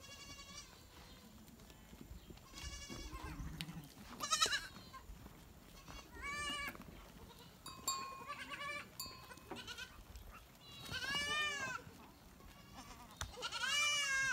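Penned goats and sheep bleating, about seven separate calls from different animals spread a second or two apart, several rising then falling in pitch.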